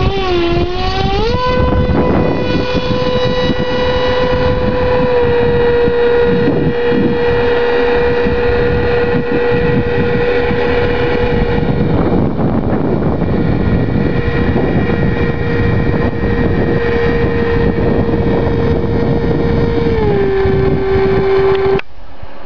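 Electric motor and propeller of a Skywalker FPV RC plane spooling up at hand launch, then holding a steady high whine; the pitch dips slightly near the end. Strong wind buffets the microphone throughout.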